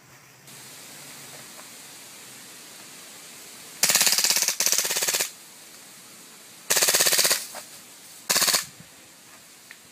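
Airsoft gun firing short full-auto bursts, a rapid even rattle of shots: two bursts back to back about four seconds in, another about seven seconds in, and a brief one about a second later.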